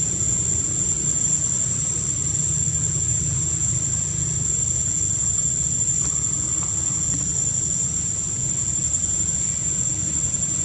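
Steady high-pitched insect drone, unbroken and even in level, over a low steady rumble.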